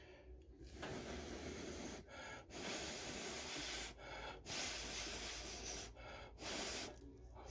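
A man huffing air hard in and out through his mouth, long breaths one after another, to cool a mouthful of food that is too hot.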